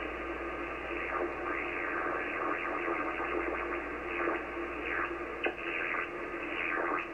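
80-metre amateur radio receiver playing radio-frequency interference from a laptop touchpad being touched: warbling tones that sweep up and down over a hiss of band noise, with a steady low hum underneath. The warble changes with how hard the touchpad is pressed.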